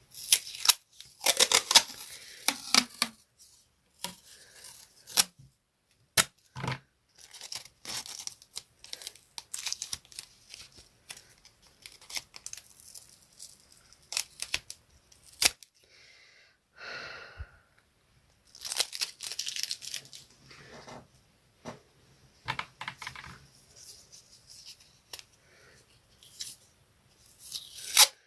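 Coloring on paper: quick, scratchy scribbling strokes that come in bursts with short pauses between them.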